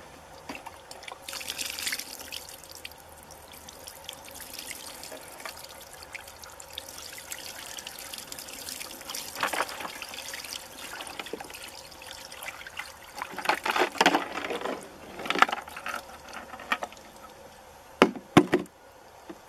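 Water pouring and splashing out of bullet-holed plastic jugs as they are tipped and handled, louder in a few swells in the latter half. Two sharp knocks near the end as a plastic jug is set down on concrete.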